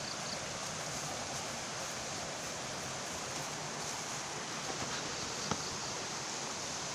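A steady, even hiss, with a faint tick about five and a half seconds in.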